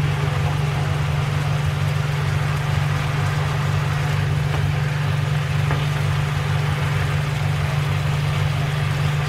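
Steady low machine hum with an even hiss over it, from the running cooktop and a steamer pot at work.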